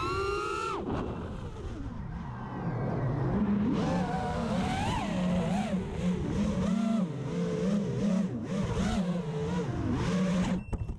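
Brushless motors and propellers of a 220 mm FPV racing quad (DYS Fire 2600kv motors) whining in flight, the pitch rising and falling fast with throttle. A rising whine drops off about a second in, then quick warbling swings in pitch follow, and the sound cuts off abruptly at the very end.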